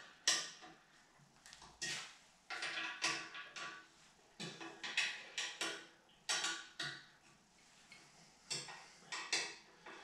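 Allen wrench clinking against the steel post bracket as its screws are tightened: a series of light, irregular metallic clicks, roughly one a second, each ringing briefly.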